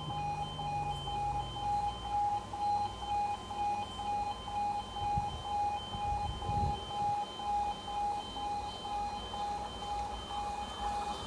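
Railway level crossing's audible warning alarm sounding a steady, rapidly alternating two-tone pattern while the barriers are down, signalling that a train is approaching.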